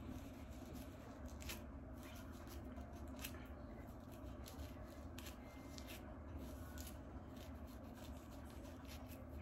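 Plastic fine-tooth comb scratching through hair against the scalp in short, irregular strokes, lifting dry scalp flakes, over a low steady hum.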